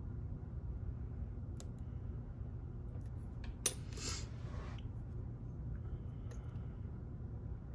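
Lock picks working in the keyway of an ASSA Twin Exclusive 5700 lock: faint scattered metallic clicks, then one sharp click about three and a half seconds in, followed by a brief scrape, over a steady low hum.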